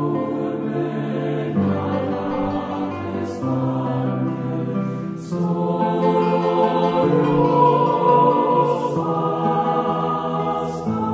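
Background music: a choir singing slow, sustained chords that change every two seconds or so, with a brief high shimmer at several of the changes.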